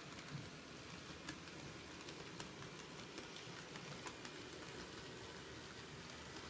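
N scale model freight trains running on Kato Unitrack: a faint, steady whir with light clicks scattered through it, roughly one a second.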